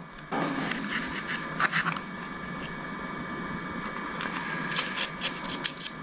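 A few light clicks and taps of small metal lock-cylinder parts being handled, over a steady background hiss with faint steady whining tones.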